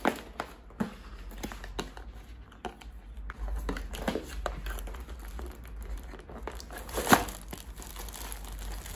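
Cardboard box and clear plastic wrapping being handled: irregular rustling and crinkling of the packaging as the straightener's box is opened, with a sharp knock about seven seconds in.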